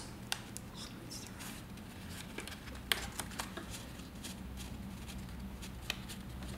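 Faint handling sounds of a Polaroid 81-05 film holder and instant film sheet: scattered small clicks and ticks as fingers seat the film's tab at the holder's edge, over a steady low hum.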